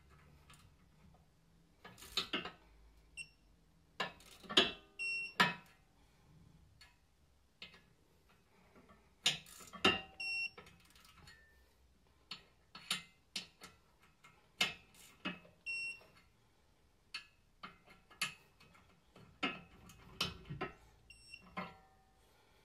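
Digital torque wrench giving short high beeps as each wheel stud comes up to its set torque of 33.8 N·m, in between ratchet clicks and sharp metal clinks of the socket, studs and holding bar.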